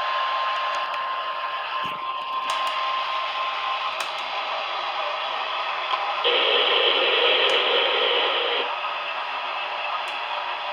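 Static hiss from a radio receiver, with a thin steady tone underneath for the first four seconds or so. A louder stretch of static runs from about six seconds in to about eight and a half.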